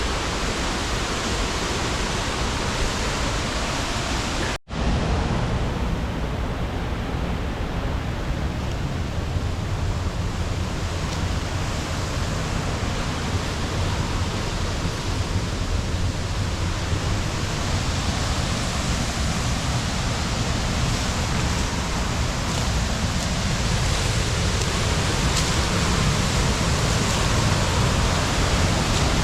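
Waterfall rushing steadily, an even wash of falling water. It cuts out for an instant about four and a half seconds in, then carries on, growing slightly louder toward the end.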